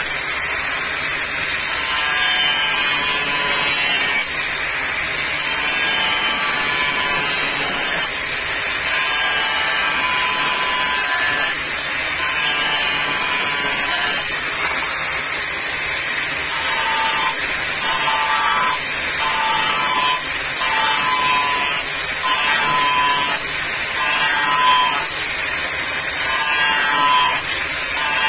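Hand angle grinder running with a steady high whine as its disc grinds along the edge of a steel brush-cutter blade, sharpening it.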